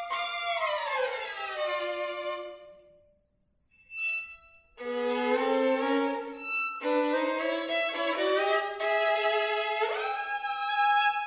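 Violin played with the bow. A held note slides down in pitch and fades into a brief pause, a short high note sounds, and then the playing resumes with sustained notes that slide upward again near the end.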